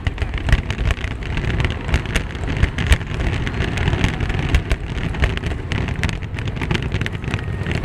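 Aerial fireworks finale barrage: many shells bursting in quick, overlapping succession, sharp cracks and bangs over a constant low booming, with one especially loud bang about three seconds in.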